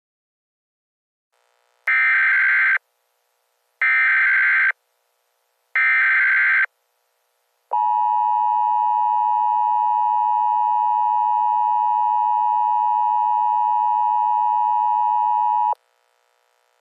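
Emergency Alert System tones: three short, identical bursts of the SAME data header, each just under a second and about two seconds apart, then the steady two-tone EAS attention signal held for about eight seconds and cut off sharply. The sequence announces an emergency alert message to follow.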